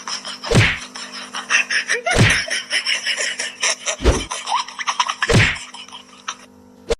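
Four heavy thumps, irregularly spaced about one and a half to two seconds apart, over a busy clatter of small clicks and a steady low hum.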